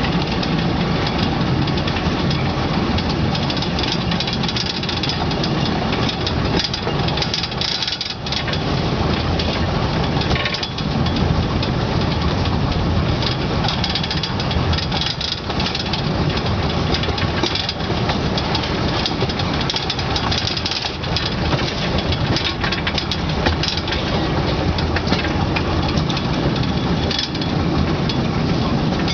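A 600 mm gauge field-railway train running steadily: the locomotive's engine and the open wagon rattling along the narrow-gauge track.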